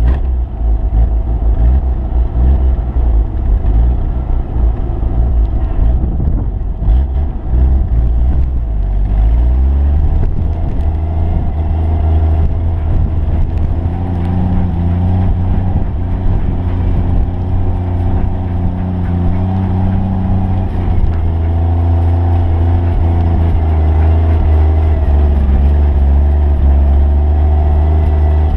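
A Jeep's engine running as it drives through deep snow, with a loud low rumble; the engine note rises and falls several times with the throttle. The first eight seconds or so are rougher and more uneven.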